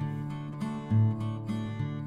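Background music of plucked acoustic guitar, single notes picked and left ringing.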